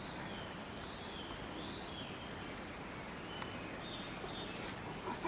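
Steady outdoor background noise with a faint high wavering tone and a few soft clicks.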